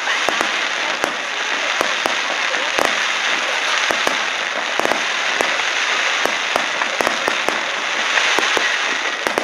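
Aerial fireworks display: a dense, continuous crackle of bursting shells, punctuated by many sharp pops and bangs.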